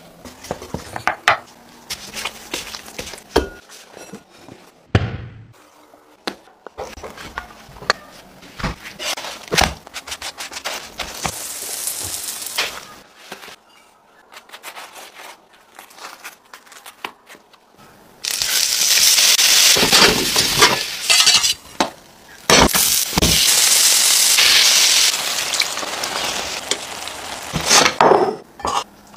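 Kitchen work sounds: clinks and knocks of a glass mixing bowl and utensils while bread dough is mixed and handled, then loud sizzling of flatbread frying in a hot pan, broken by a short pause a little over halfway through.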